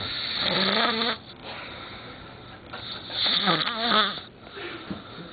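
A man snoring loudly in his sleep: two long snores, each over a second long, the second beginning nearly three seconds after the first, with quieter breathing between.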